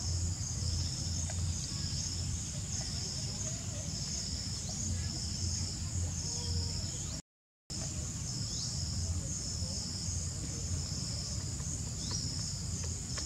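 Outdoor insect chorus: a high, pulsing buzz that swells and fades about once a second, over a low rumble. The sound cuts out briefly about seven seconds in.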